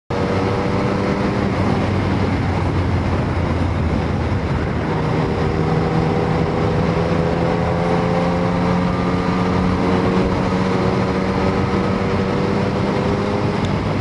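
Yamaha MT-09's three-cylinder engine running steadily under way, with wind and road noise. The engine note shifts slightly about five seconds in.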